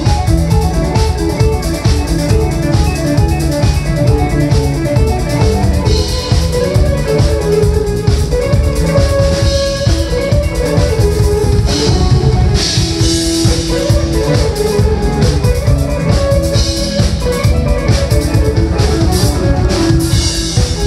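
Live band playing loud instrumental music: electric guitar over a drum kit.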